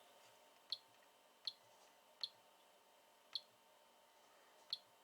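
Five faint, sharp clicks spaced unevenly about a second apart: the push-buttons of a Peak DCA75 semiconductor analyser being pressed to step through its readings.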